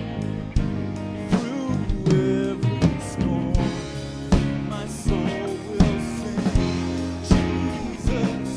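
Drum kit played live in a worship band, kick and snare hitting a steady beat about every three-quarters of a second with cymbals, under singing and sustained band chords.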